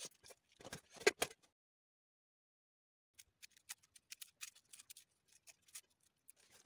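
Knife clicking and scraping against a steel plate as a small onion is peeled and cut, in short irregular taps. The tapping stops for about a second and a half shortly after the start, then resumes more faintly.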